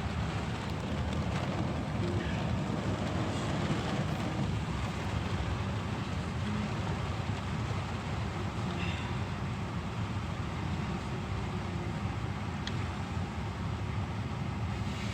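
Steady rain falling on and around a parked car, heard from inside the car with the windows partly down, a constant hiss over a low rumble.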